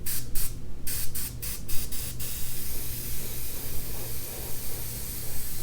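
Airbrush spraying paint in a quick run of short trigger bursts, about eight in the first two seconds, then a steady hiss of spray for the rest.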